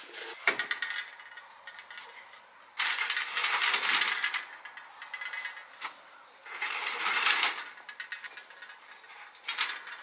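Two bursts of rapid mechanical rattling, one about a second and a half long about three seconds in and a shorter one about seven seconds in, with lighter rattling at the start.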